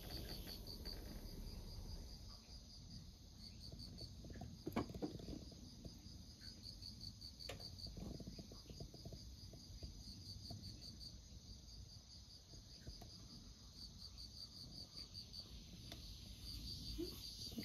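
Faint insect chirping: short trains of rapid, high-pitched pulses repeating with brief pauses, over a low outdoor rumble. A couple of soft knocks come about five and seven seconds in.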